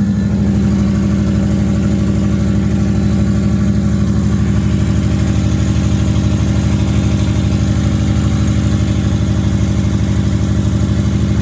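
2008 Subaru Legacy 2.5i's flat-four engine idling steadily through a straight-piped exhaust, with an even, fast pulse. It is running on fresh oil just after an oil change, warming up.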